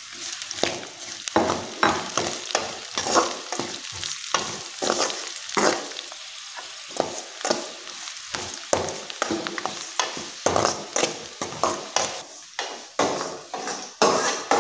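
Spoon and spatula stirring and scraping sliced onions, garlic, green chillies and curry leaves frying in oil in an aluminium kadai, in repeated strokes about two a second over a steady sizzle. The onions are being sautéed until soft.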